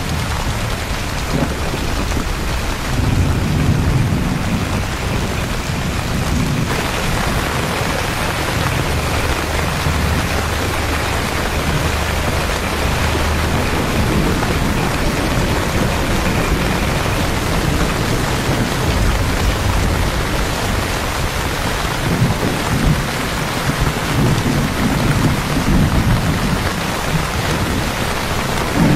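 Steady heavy rain pouring onto the street and pavement, with deep rolling thunder that swells and fades several times.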